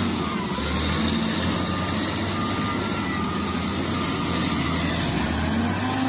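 Heavy diesel engines of XGMA wheel loaders running, a steady low rumble under a dense wash of noise.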